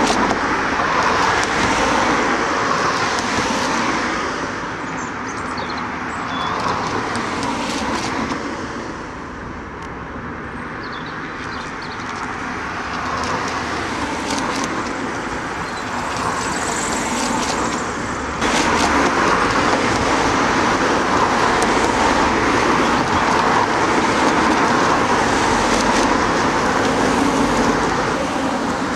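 Road traffic noise: a continuous wash of cars passing. It eases off a little around a third of the way in, then steps up suddenly to a louder level about two-thirds of the way through.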